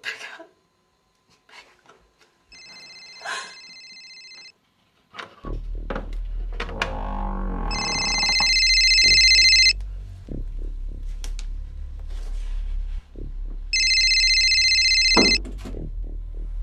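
A telephone ringing three times in rings of about two seconds, the first faint and the other two loud. Under the later rings runs a low droning music score with a falling sweep.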